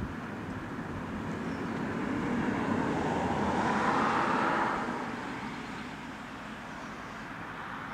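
A minivan driving past, its engine and tyre noise swelling to a peak about four seconds in, then fading over the next second. There is a brief click at the very start.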